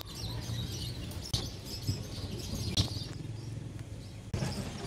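Cats chewing dry kibble: crunching with a few sharp clicks, the loudest about a second in and near three seconds, over a steady low hum and faint high chirping.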